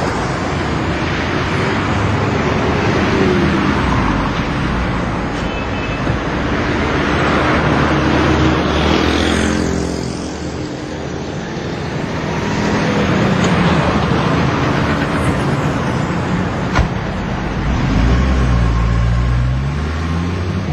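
City street traffic: cars and scooters passing, with a steady mix of engine and tyre noise that swells and fades, and a heavier low engine rumble near the end.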